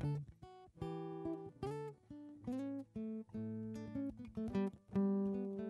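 Background music played on acoustic guitar: a steady run of plucked notes and strummed chords.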